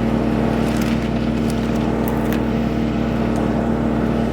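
Woodmaxx WM8H PTO-driven 8-inch wood chipper running steadily off the tractor, a constant mechanical hum with a few faint clicks as its self-feed pulls branches in.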